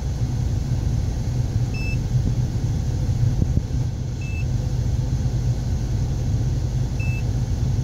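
Steady low rumble of a running Chevy Lumina V6 engine and its heater blower, heard inside the car's cabin. Three short electronic beeps, about two and a half seconds apart, come from the keypad of a handheld Autel AutoLink scan tool as its buttons are pressed.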